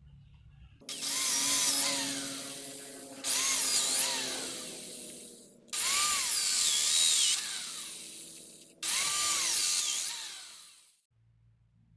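Handheld electric drill boring into short pieces of tree branch, run in four bursts of two to three seconds each with a sudden start. The motor's whine sags and recovers in pitch as the bit bites into the wood.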